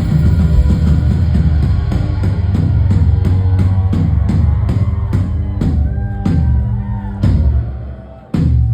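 Live heavy rock on distorted bass guitar and drum kit, with drum hits about twice a second. Near the end the music thins and fades, then one loud accented hit of band and drums.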